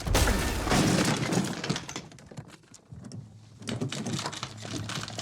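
Film sound of a forced break-in: loud crashing and clattering over the first two seconds, then quieter scattered knocks.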